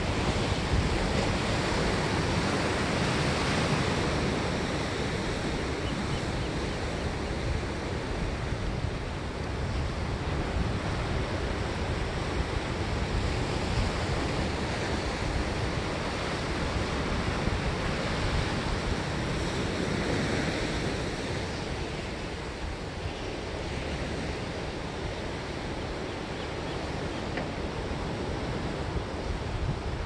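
Pacific Ocean surf: waves breaking in a continuous rushing wash, swelling louder at the start and again about twenty seconds in.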